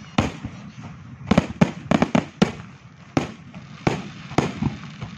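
Aerial firework shells bursting overhead: an irregular series of about ten sharp bangs, bunched closest between one and two and a half seconds in.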